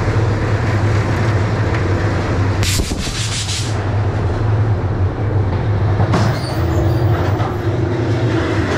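Ghost-train ride car rolling along its track in the dark: a steady low rumble with rattling from the wheels and track. About three seconds in, a short loud hiss lasts under a second.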